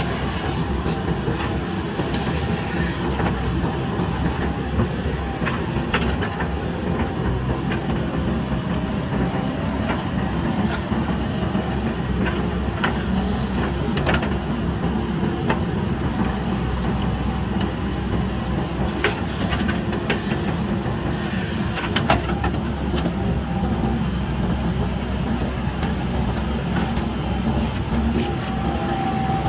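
JCB backhoe loader's diesel engine running steadily at work, with scattered sharp knocks and clanks from the digging.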